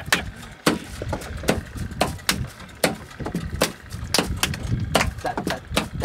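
Hand claps in a rough, uneven beat, about two a second.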